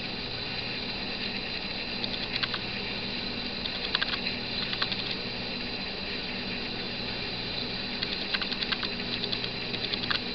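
Video camera's own mechanical noise: small clusters of ratchet-like clicks come several times over a steady electronic hiss and hum.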